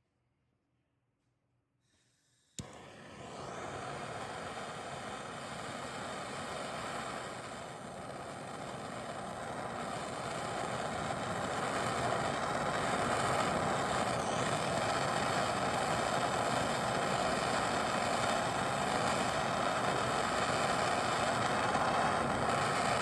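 Handheld gas torch lit with a sharp click a couple of seconds in, then burning with a steady hiss that grows slightly louder, heating a stuck strut top nut to free it.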